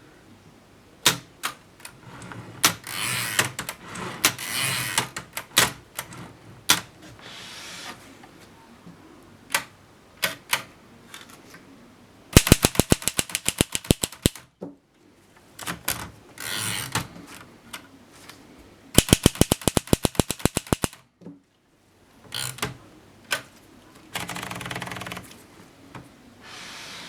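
1939 Erika M typewriter being worked: single key strikes, then two fast runs of evenly spaced strokes about halfway through and again some seconds later, with longer noisy stretches of mechanism between them.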